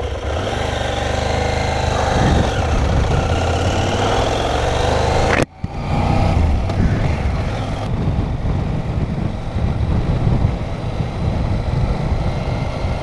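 CFMOTO Ibex 800T's 799 cc parallel-twin engine running under way at road speed, with wind rushing past. About five and a half seconds in, the sound cuts off for a moment and then resumes.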